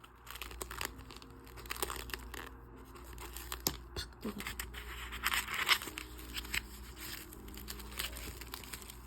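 Scattered crisp crackling, tearing and rustling of food being handled and eaten at the table, with many short irregular cracks.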